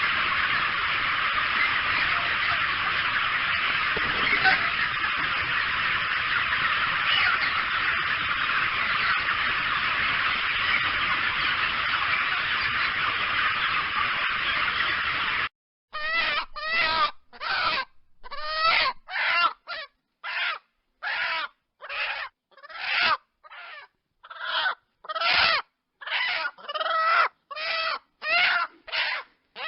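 Chickens: a steady dense din that cuts off suddenly about halfway through, followed by a run of about twenty short, loud squawking calls, roughly one and a half a second, each separated by silence.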